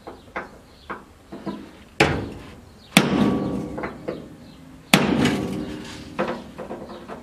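Hammer striking a steel punch held against the rusted sheet-steel cab panel of a 1975 Daihatsu F10: a few light taps, then three hard blows about two, three and five seconds in, the last two followed by a metallic ring.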